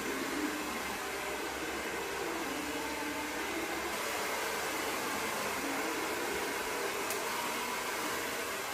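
Steady, even rushing noise like a fan or air conditioner, with faint low tones shifting up and down beneath it.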